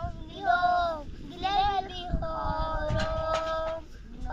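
A young child singing, holding long high notes that bend and break off every second or so, with a fainter lower voice beneath.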